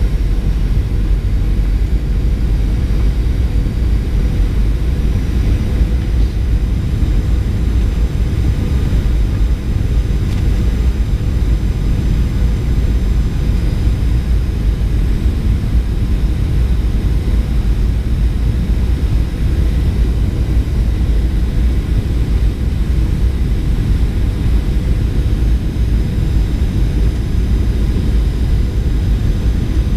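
Steady cabin noise of a Boeing 737-800 descending on approach, heard from a window seat beside the wing: a deep, even rumble of the CFM56 engines and airflow, with a faint steady hum running through it.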